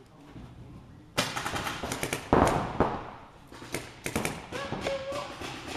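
Paintball markers firing in rapid strings of shots, starting about a second in, during a match.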